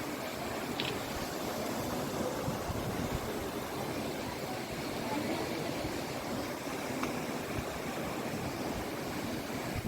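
Steady rush of fast-flowing floodwater, an even noise with no breaks.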